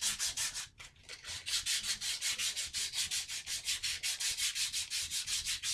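Hand sanding with 220-grit sandpaper on a backer, rubbed back and forth over the wooden fore end of a Winchester 1906 .22 pump rifle. It makes an even, quick scratching of about four to five strokes a second, with a brief pause about a second in.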